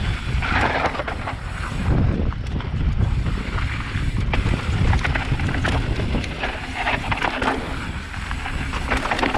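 Mountain bike descending a loose, dry dirt trail: wind buffeting the microphone over tyres sliding on loose dirt, with scattered sharp clicks and rattles from the bike.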